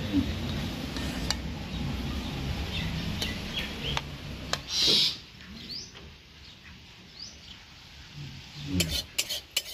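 Spatula clicking and scraping against an aluminium wok as fish and gravy are served out, with small birds chirping faintly. A low rumble stops about five seconds in.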